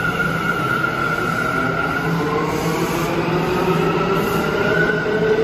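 Kawasaki R211A subway train pulling out and gathering speed, its traction motors giving a high steady whine while a lower motor tone rises in pitch from about two seconds in, over the rumble of wheels on rail. This is the screeching, scraping traction motor sound shared by Kawasaki multiple units.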